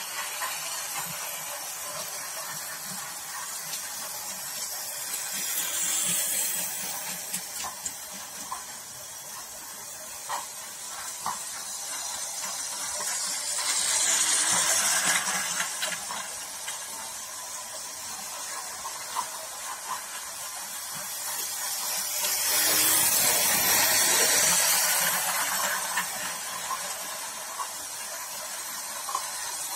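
Toy model train running on a plastic track loop: a hissing rattle of its motor and wheels with small clicks, swelling three times as it comes round close to the microphone, loudest near the end.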